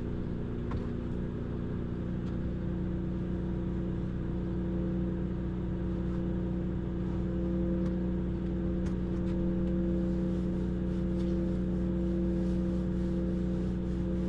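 Steady motor hum with a constant low pitch, growing slightly louder in the second half.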